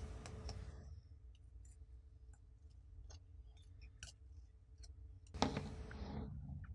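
Faint light clicks and handling noise from a flight controller board being fitted by hand onto a quadcopter's stack. A short, louder rustle comes about five and a half seconds in.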